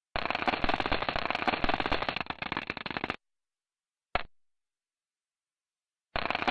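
Crackling, popping static of a NASA space recording: radio or plasma-wave emissions converted into sound. It runs for about three seconds, cuts out, comes back as a brief burst about four seconds in, and starts again near the end.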